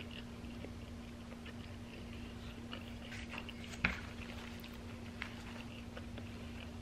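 A person chewing a big mouthful of food with faint, scattered clicks, over a steady low hum. There is one sharper click a little past halfway.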